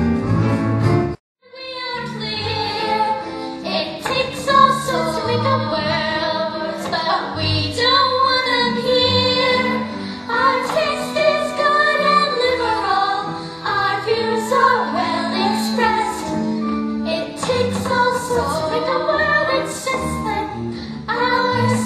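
Young performers singing a musical-theatre song with instrumental accompaniment. The sound cuts out briefly about a second in, then the singing and music resume.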